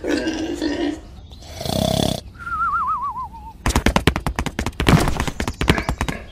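Cartoon sound effects for toy pigs: a grunt and snort in the first two seconds, a wobbling whistle that falls in pitch about halfway, then a fast run of clattering taps like scurrying feet for the last two and a half seconds.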